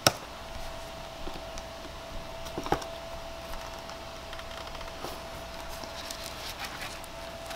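Clicks and small creaks of a plastic car tail light being pried apart with a wedge tool, with a sharp click right at the start and another near three seconds. The lens is held fast by its sealant and is not coming loose. A faint steady hum runs underneath.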